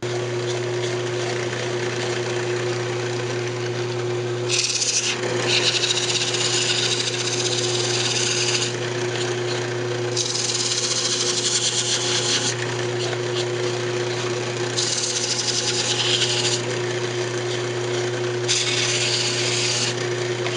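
Delta 46-460 wood lathe running with a steady hum while sandpaper is held against the spinning maple workpiece, the sanding giving four spells of high hissing a few seconds long as the paper is pressed on and lifted off.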